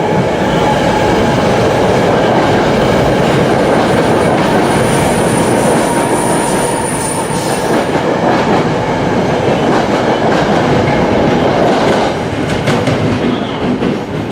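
SEPTA commuter train moving through the station close by, with a steady heavy rumble of wheels on rail. A thin, high wheel squeal comes in for a few seconds around the middle, and rail-joint clicks sound in the last couple of seconds.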